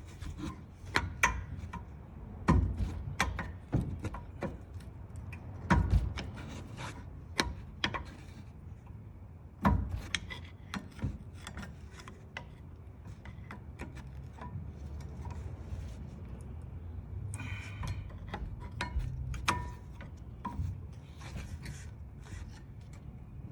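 A screwdriver levering a rear brake caliper piston back, with irregular metal clicks, knocks and scraping against the pad and caliper.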